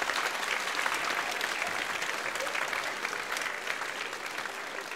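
Theatre audience applauding, dense clapping that gradually thins and fades toward the end.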